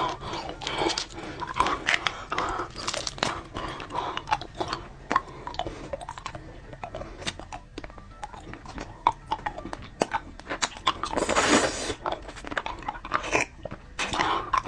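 Close-miked mouth sounds of someone biting and chewing crunchy food: many sharp crunches at an uneven pace, with a louder, longer noisy stretch about eleven seconds in.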